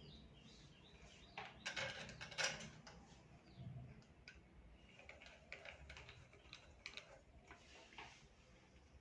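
Faint clicks and light knocks of table fan motor parts being handled and fitted together, with a quick cluster of clicks between one and a half and two and a half seconds in, then scattered single clicks.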